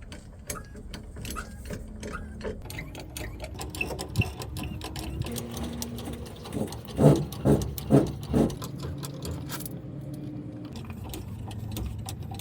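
Volvo FH truck's cab-tilt pump being worked to raise the cab: rhythmic clicking strokes, with a run of four louder, creaking strokes about two a second a little past the middle.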